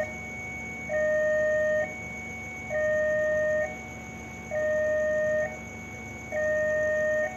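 Electronic railway warning alarm sounding, alternating steadily between two pitches, each held about a second, with the lower tone louder. It is the warning for an approaching train, here the crossing train the stopped train is waiting for.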